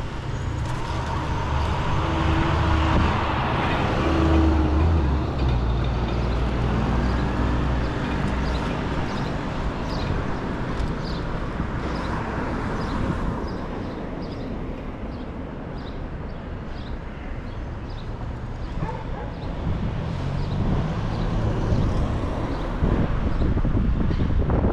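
Street traffic: motor vehicles running and passing on the street, a low engine rumble that swells loudest about four seconds in and again near the end.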